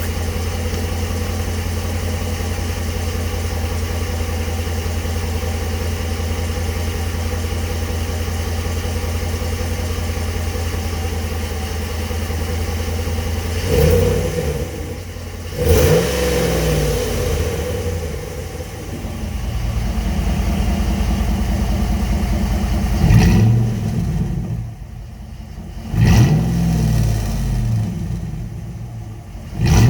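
Ram 1500 pickup engine idling steadily through an exhaust fitted with an electric cutout, then revved in several short throttle blips in the second half, each falling back to idle.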